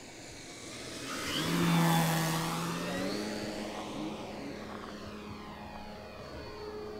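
Electric Hangar 9 P-47 Thunderbolt RC model on 4S with its stock 14x12 wooden propeller, making a fast low pass. The propeller whoosh and motor hum swell to their loudest about two seconds in, then fade as it moves away. About a second after the peak the hum rises in pitch as the motor speeds up.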